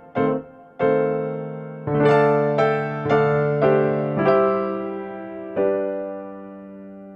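Background music: an electric piano playing a slow melody of struck notes and chords, each note fading away, ending on a long held note.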